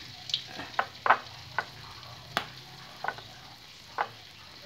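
Batter-coated chicken frying in hot oil: a steady low sizzle with about seven sharp pops scattered through it.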